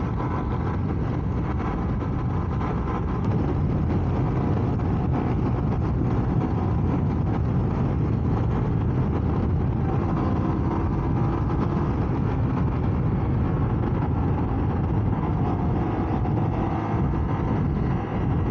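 Honda Varadero 125's small V-twin engine running at steady road speed, mixed with wind rush on the rider's camera microphone. It gets a little louder about three and a half seconds in.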